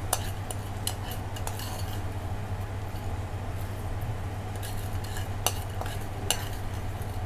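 Metal spoon scraping and clinking against a ceramic dish while scooping crispy fried garlic onto a plate of chicken wings. There are a few sharp clinks, the clearest two about five and a half and six seconds in, over a steady low hum.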